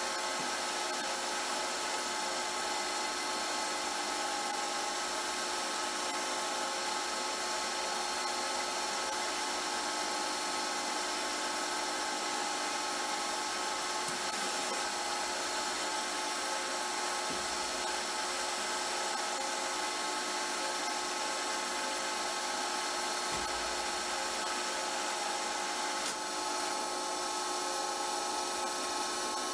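Metal lathe running steadily at a slow spindle speed while a single-point boring-bar tool cuts internal threads in a steel end cap; an even mechanical sound with several steady tones.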